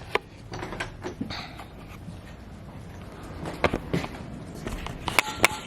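Footsteps with scattered light knocks and clicks, and two sharp clacks near the end.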